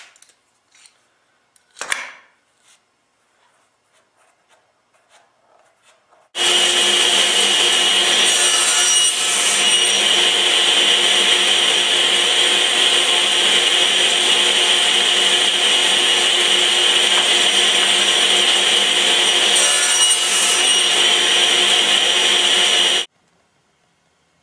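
Electric woodworking power tool running at a constant speed: a steady whine over a loud hiss. It starts abruptly about six seconds in and cuts off near the end. Before it there are a few light knocks and a clatter about two seconds in.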